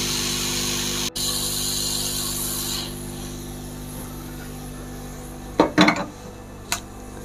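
Hot air rework station blowing on a laptop motherboard to desolder a component with tweezers: a steady airflow hiss over a fan hum. The hiss drops away about three seconds in, leaving a quieter hum, and a few knocks follow near the end.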